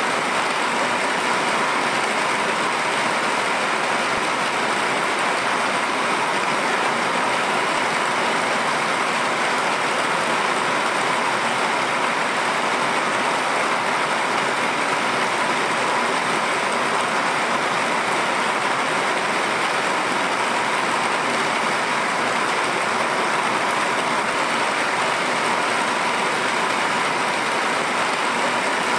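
Steady rain falling on a roof, an even, unbroken hiss of drops at a constant level.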